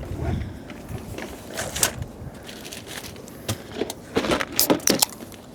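Light knocks and clicks of objects being handled, loosely spaced, with a cluster of sharper clicks about four to five seconds in.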